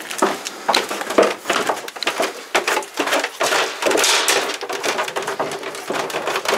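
Footsteps of several people going down a staircase: irregular thumps and knocks with rustling in between.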